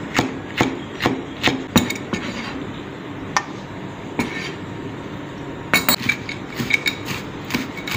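Kitchen knife chopping on a cutting board: sharp knocks about two or three a second as green chillies are sliced, a quieter stretch of a few seconds, then quicker chopping through mint leaves near the end.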